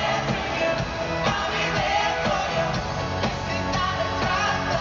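Live pop-rock song from a band over an arena sound system, with a lead vocal over a steady beat, recorded from the audience.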